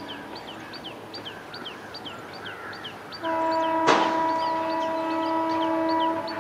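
WAP-4 electric locomotive's horn sounding one steady blast of about three seconds, starting a little past halfway, with a sharp click near its start. A bird calls repeatedly throughout with short falling chirps, two or three a second.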